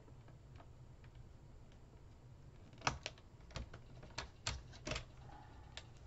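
Sharp plastic clicks and taps, about eight within two seconds starting about three seconds in and one more shortly after, as a paper trimmer's clear plastic guide rail is set down and lined up on scrapbook paper on a cutting and scoring board.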